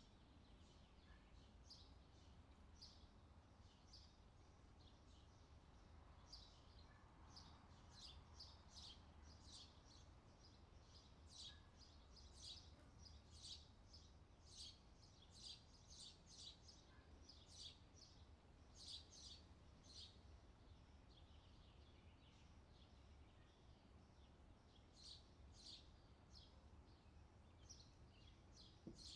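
Near silence, with faint bird chirps repeating high up over a low steady hum; the chirps come thickest from about ten to twenty seconds in.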